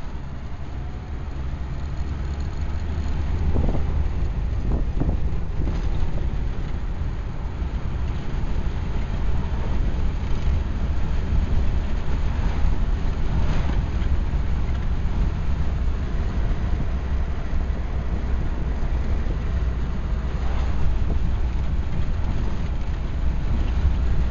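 Ford Model A's four-cylinder engine running while the car drives along, with road and wind noise in the open car. It grows louder over the first few seconds, then holds steady.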